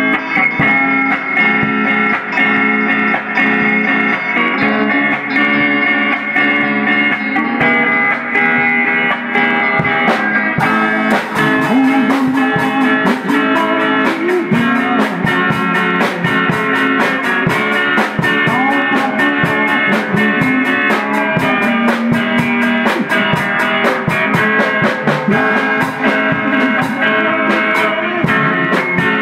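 Live band playing: electric guitars through a small amplifier with a drum kit. The drums play steadily from about eleven seconds in.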